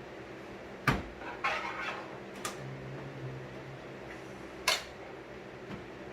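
Hard plastic knocks and clatter from a keyboard and its parts being handled and set down: a sharp knock about a second in, a short scraping rattle, another knock, and a second sharp knock near the end.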